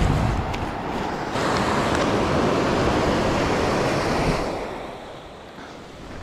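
Surf washing onto a sandy beach: a wave rushes in, holds for a few seconds and fades away about four seconds in. Wind buffets the microphone underneath as a low rumble.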